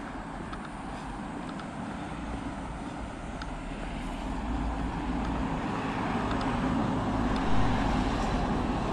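Road traffic noise, a steady low rumble and hiss of passing cars that slowly grows louder.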